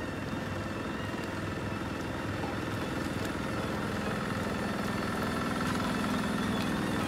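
Engine of a cable-logging yarding system running steadily, slowly getting louder as the grapple carriage comes down the skyline, with a few faint ticks.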